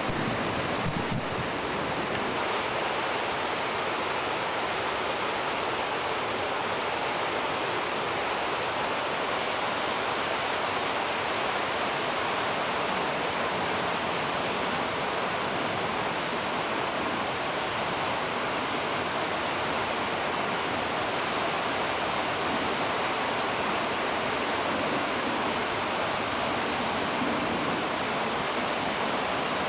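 Steady rushing of a mountain river in a gorge, an even, unbroken sound of fast water.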